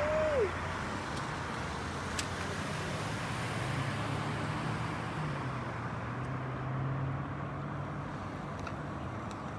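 Road traffic noise: a passing car's hiss fading away at the start, then a steady low engine hum from the street. A brief rising-and-falling squeak comes right at the start.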